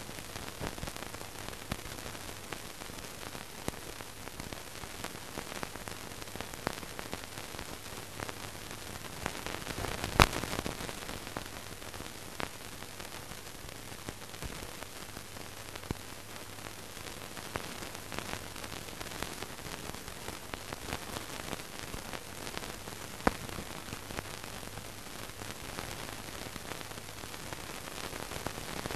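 Steady hiss and crackle of an old newsreel film soundtrack over a faint hum, with scattered small ticks, a sharp click about ten seconds in and a smaller one near twenty-three seconds.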